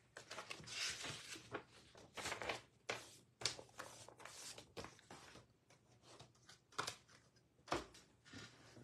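Faint, irregular rustling and crinkling handling noise with a few sharp clicks.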